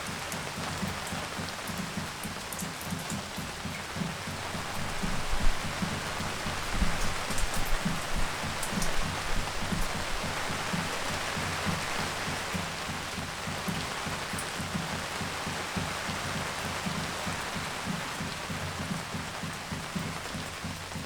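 Steady spring rain shower falling on a garden, with a constant hiss and many drops landing in dull, low taps on hard surfaces. It grows louder for a few seconds, about a quarter of the way in.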